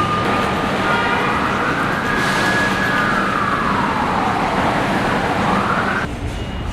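Emergency vehicle siren wailing, its pitch making one slow rise and fall and starting to climb again before it cuts off suddenly about six seconds in, over steady traffic noise.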